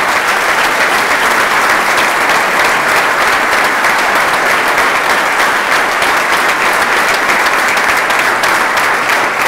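Audience applause, a large seated crowd clapping steadily after a speech ends.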